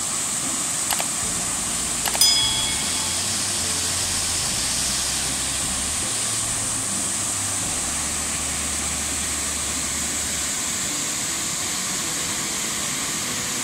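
Waterfall: a steady rush of white water pouring down over rocks. Two brief clicks come about one and two seconds in.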